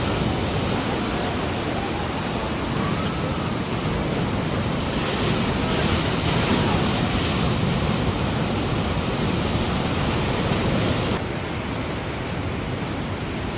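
Steady wash of ocean surf with wind noise on the microphone; the level steps down a little about eleven seconds in.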